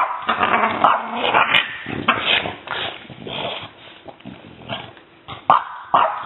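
French bulldog puppy barking and growling in play, a quick run of short, sharp barks at first, easing off, then two sharp barks near the end.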